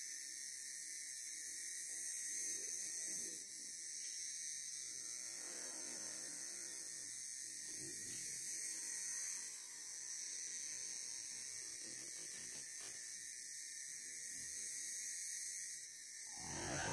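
Steady high-pitched drone of forest insects, with a louder sound starting right at the end.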